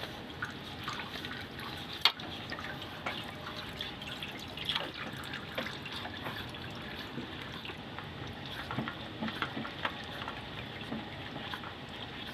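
Engine oil pouring steadily, with scattered drips and a sharp tap about two seconds in.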